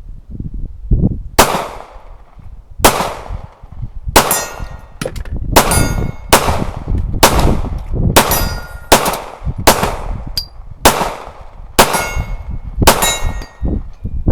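About a dozen shots from a Glock 43X 9mm pistol, fired at roughly one a second and quicker after the first few, several of them followed by a brief metallic ring of hit steel targets.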